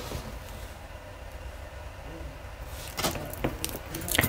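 Jewelry being handled: a few light clicks and taps starting about three seconds in, over a faint low hum.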